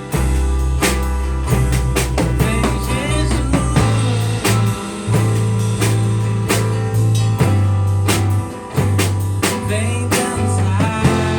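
A live band playing an instrumental passage: a drum kit keeps a steady beat over held bass notes that shift pitch about four seconds in, with bending melodic lines above.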